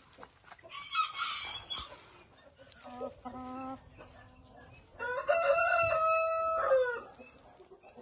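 A rooster crows once, a long pitched call of about two seconds in the second half, the loudest sound. Shorter chicken calls come before it: a harsh squawk about a second in and a brief lower call near the middle.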